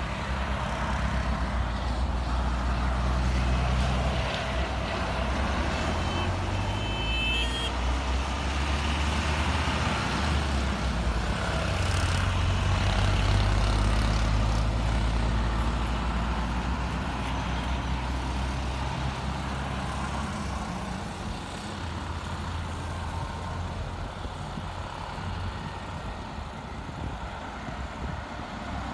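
Boeing 737-800's jet engines at taxi power, heard from across the airfield as a steady low rumble that swells and eases.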